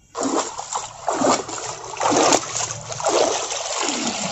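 Water splashing in repeated noisy surges, roughly once a second.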